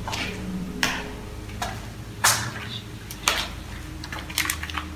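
Footsteps scuffing and crunching on a hard corridor floor, a single step about once a second, over a faint low hum.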